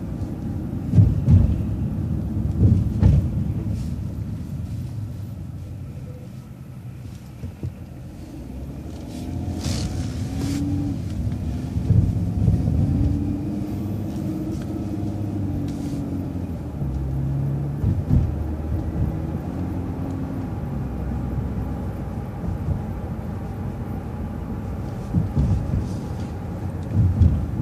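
Transit bus engine and road rumble while driving, with the engine note rising and falling through the middle stretch and a few short knocks.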